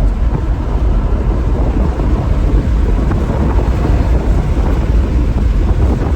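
Steady, loud low rumble of wind, road and engine noise inside a VW Phaeton's cabin at freeway speed, with wind buffeting the microphone.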